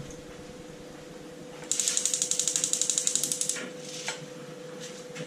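Gas stove's electric spark igniter clicking rapidly for about two seconds while the burner knob is turned and held, lighting the burner. A faint steady hum runs underneath.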